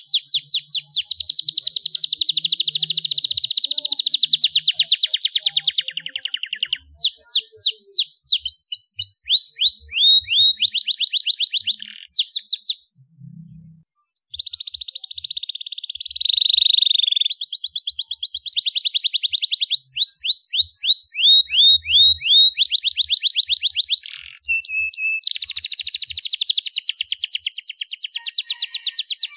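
Domestic canary singing vigorously, a long song of fast trills and rolls made of rapid runs of high repeated notes, with a short pause a little under halfway through.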